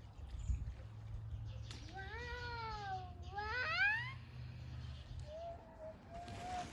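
A cat meowing twice: a long call that rises and then falls, about two seconds in, followed straight away by a shorter upward-gliding meow, with a fainter call near the end, over a faint low hum.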